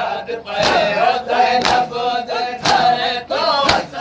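A group of men chanting a nauha mourning lament in unison, punctuated by a sharp collective chest-beat (matam) about once a second, four strikes in all.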